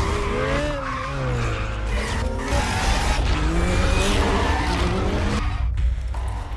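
Car engines revving hard, their pitch rising and falling, with tyres squealing through fast cornering over a heavy low rumble. The sound drops away abruptly about five and a half seconds in.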